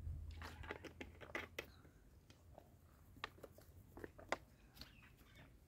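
Faint, scattered small clicks and mouth sounds of a person drinking.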